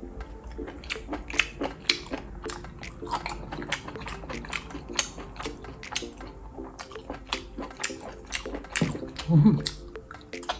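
Close-miked eating: irregular wet clicks, smacks and squelches as fingers pull enoki mushrooms from a saucy tray and the mouth bites and chews them. A louder, lower mouth sound comes about nine seconds in.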